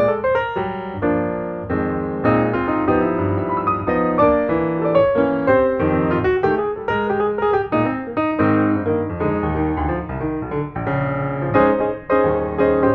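Background piano music: a continuous, gently moving run of piano notes.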